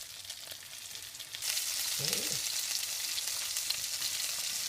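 Beef burgers sizzling as they fry in an oiled pan, a steady hissing sizzle that gets louder about a second and a half in.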